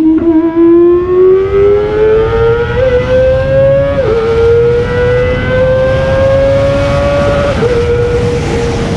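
Kawasaki ZX25R's 250 cc inline-four engine pulling hard at high revs, its pitch rising steadily through a gear, dropping at an upshift about four seconds in, climbing again, then easing back near the end and holding steady.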